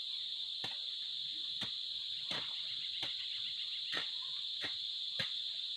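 Steady, high-pitched insect chorus, with short sharp clicks repeating about every two-thirds of a second.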